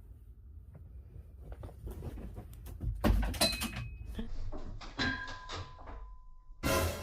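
A cat tumbling and knocking against something metal: small scrabbling ticks, then a loud knock about three seconds in with a metallic ring that hangs for about a second, a second clang about five seconds in whose ringing tone lasts over a second, and another loud knock near the end.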